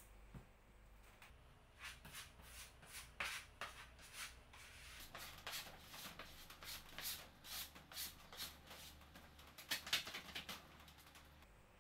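A red plastic glue spreader scraping back and forth across a plywood panel, spreading glue in a quick, uneven series of short strokes that starts about two seconds in and is loudest near the end.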